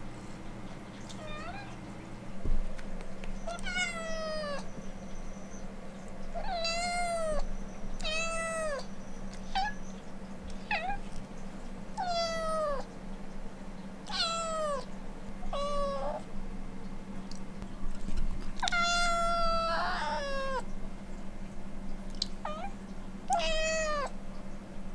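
Siberian forest cat meowing again and again, begging to be let outside: about a dozen short meows, each falling in pitch, with one longer, drawn-out meow a little past the middle.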